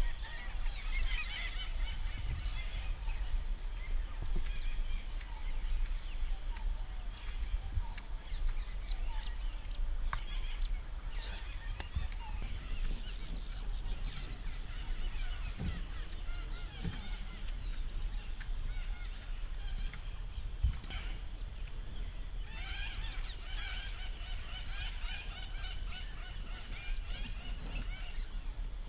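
Birds calling, thickest at the start and again over the last several seconds, over a steady low background hum.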